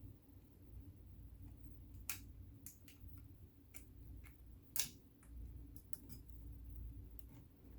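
Faint, scattered small clicks and ticks of sewing machine parts and screws being handled and fitted, with one sharper click a little under five seconds in.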